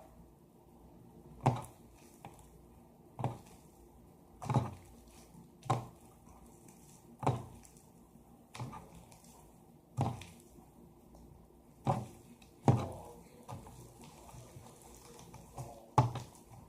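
Slime loosened with dish soap, squeezed and pressed by hand. It gives about ten short, wet squelches, roughly one every second or so.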